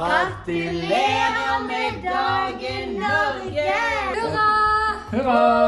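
A family singing together, with a woman's and children's voices in sung notes that are held and slide up and down.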